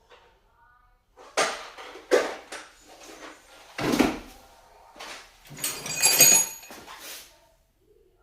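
Hand tools being handled: a series of knocks and clatters, with metallic clinking near the end, as sockets in a ratchet set are rummaged through in search of a 5 mm socket.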